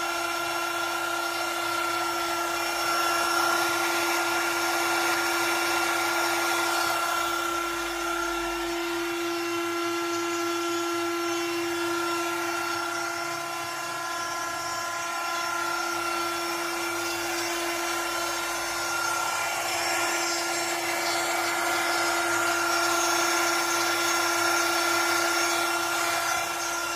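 Battery-powered trim router running steadily with a high whine while its V-bit engraves lines into a film-faced plywood board, fed slowly by a CNC gantry.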